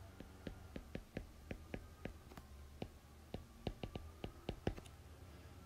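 A stylus tapping and clicking on a tablet screen as words are handwritten: a faint, irregular run of short clicks, a few a second and quickening in the second half, over a low steady hum.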